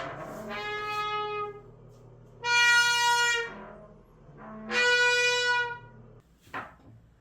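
Shower booth door squealing three times as it is moved, each squeal a clear, high pitched tone held about a second, with the second and third the loudest. This is the noise fault the booth needs repairing for. A short knock follows near the end.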